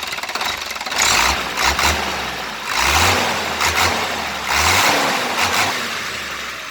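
Hino Lohan truck's diesel engine idling and revved in three short throttle blips, about a second each, while it is being tuned for more power.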